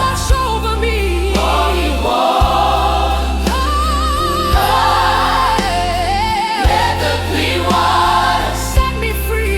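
Gospel music: voices singing long, wavering notes with vibrato over a sustained bass, with a sharp drum hit about every two seconds.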